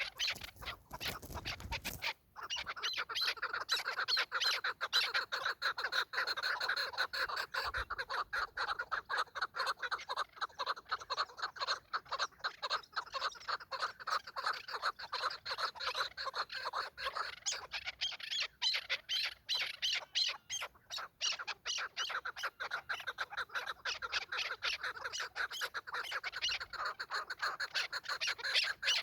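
Chukar partridges calling: a long, unbroken run of rapid clucking notes.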